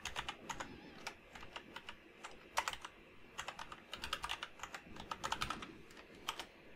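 Typing on a computer keyboard: quick clusters of key clicks broken by short pauses.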